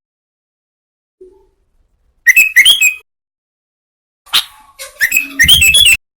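Sooty-headed bulbul (kutilang) calling in two bursts of quick, chattering whistled notes: one about two seconds in and a longer one from about four seconds, with a low rumble under the end of the second burst.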